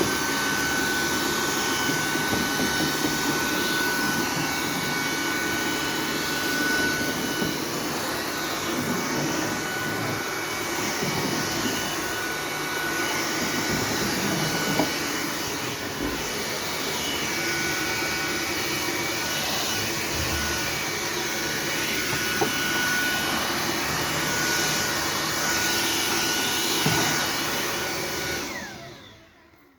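Sauber Technic cordless stick vacuum cleaner running steadily: a high motor whine over the rush of air. Near the end it is switched off and winds down.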